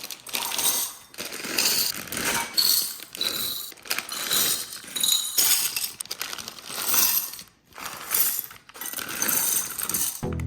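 Loose plastic building bricks and their plastic bags being handled: repeated bursts of rattling, clicking and rustling with short pauses between them.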